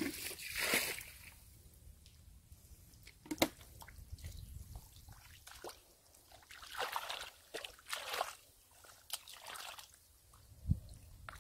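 Wet mud and shallow muddy water being worked through by hand and foot: irregular sloshing, squelching and dripping splashes, with one sharp click about a third of the way in.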